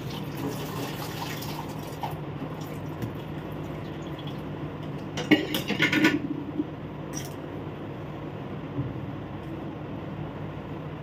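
Kitchen tap running into the sink, stopping about two seconds in; a little past the middle comes a short burst of clattering dishes and utensils, the loudest sound, followed by a single click, all over a faint steady hum.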